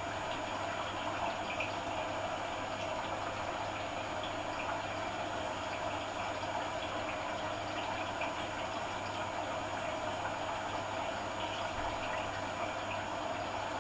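Hoover AC166 Classica 1200 automatic washing machine taking in water for a cotton rinse: a steady rush of water with a steady low hum underneath.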